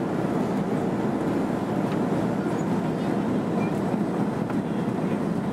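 Steady rumble of engine and airflow noise inside the cabin of a Boeing 737-300 in flight, from its CFM56 turbofans and the air rushing past the fuselage.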